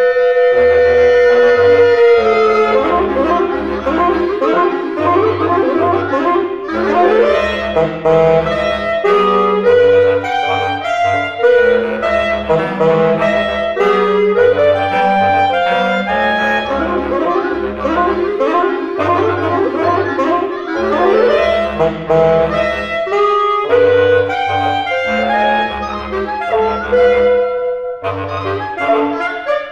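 Reed quintet of oboe, clarinet, saxophone, bassoon and bass clarinet playing a contemporary chamber piece: low, rhythmically repeated bass notes pulse under busy, overlapping lines in the upper instruments.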